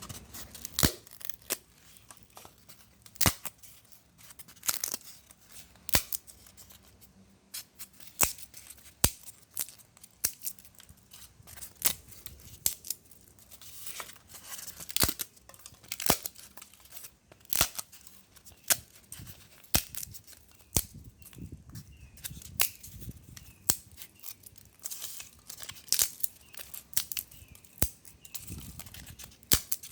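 Rigifoam rigid foam insulation board being broken into small pieces: a string of sharp snaps and cracks, often about one or two a second, with crumbling, tearing crackle in between.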